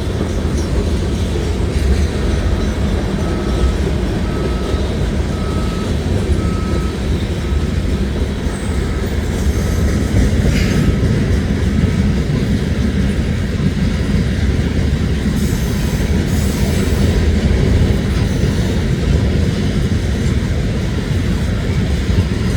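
Loaded stone cars of a freight train rolling past: a steady, heavy rumble of steel wheels on rail. A grade-crossing bell dings evenly through roughly the first half, then stops.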